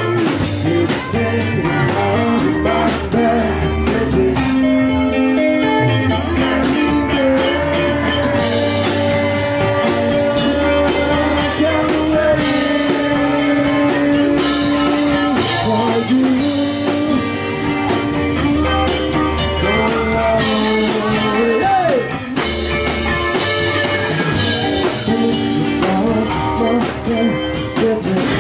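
Live rock band playing: electric guitar with a few bent notes over bass and drums, with sung vocals.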